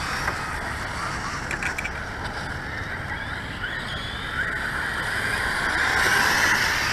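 Electric radio-controlled car running on a wet surface: a motor whine that rises and falls with the throttle over a steady wet hiss, growing louder near the end.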